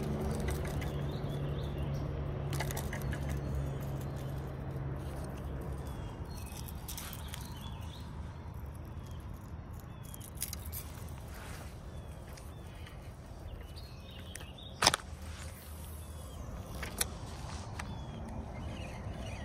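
Outdoor riverbank ambience with birds chirping faintly throughout. A low hum fades out over the first few seconds. A sharp click comes about fifteen seconds in, with a smaller one two seconds later.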